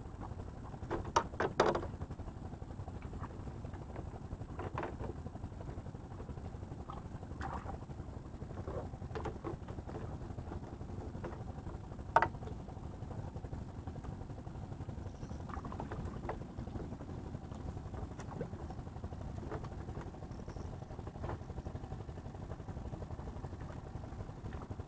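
Steady low rumble with scattered knocks and clicks of people and fishing gear moving on a wooden bamboo fishing platform; one sharper knock about halfway through.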